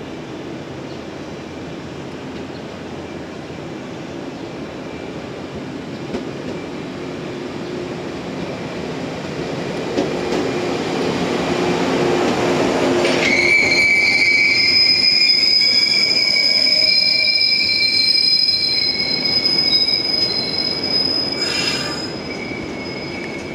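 Yellow electric multiple-unit train running into the station, its rumble growing louder as it nears. About halfway through, a sharp, steady, high-pitched squeal from the wheels sets in as the train slows alongside the platform.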